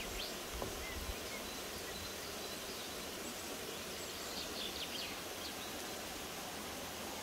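Forest ambience: a steady hiss with faint bird chirps, a short cluster of them about four to five seconds in.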